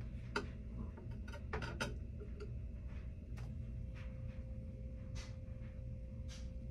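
Scattered light clicks and taps, irregular and about a dozen in all, as metal feeding tongs are worked against the glass and decor inside a reptile terrarium. A faint steady tone hums underneath.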